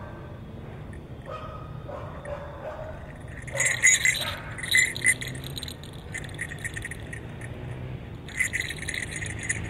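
Small gold jingle bells on the horns of a jester mask jingling as the wearer moves his head: two spells of quick jingling, one about three and a half seconds in and another near the end.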